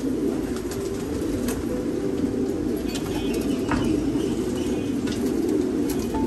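Many pigeons in a racing loft cooing together in a steady, low chorus, with occasional wing flaps.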